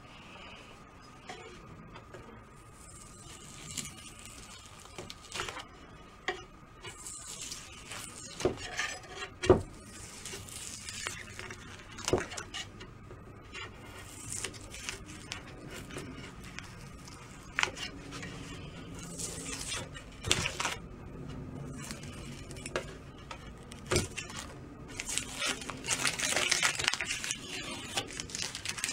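A metal putty knife scraping and prying thin, sticky veneer off a wooden snare drum shell, with scattered clicks and taps of the blade and short scraping runs that grow busier near the end.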